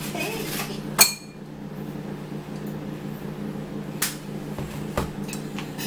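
A metal spoon clinks sharply against kitchenware about a second in, ringing briefly, then taps lightly twice more near the end, over a steady low hum.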